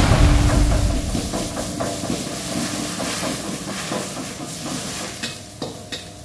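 Pounded shallots, garlic, chillies and shrimp paste sizzling hard in hot oil in a wok, with a metal spatula scraping and clattering as it stirs. A loud rumbling boom at the start dies away over the first second.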